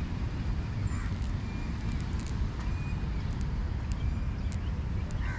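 Wind buffeting the microphone as a steady low rumble, with faint bird calls and chirps in the background.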